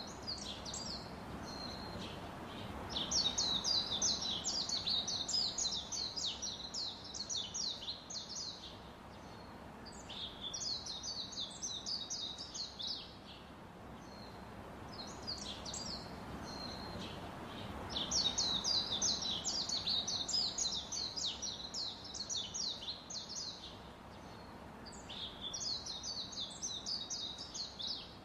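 A bird singing: bouts of rapid, high chirps lasting a few seconds each, with short pauses between them, over a faint steady noise.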